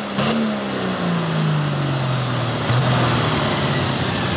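Ford 7600 pulling tractor's diesel engine running hard, then its pitch falling steadily over the next two and a half seconds as the revs come down at the end of the pull. Two sharp knocks are heard, one right at the start and one near three seconds in.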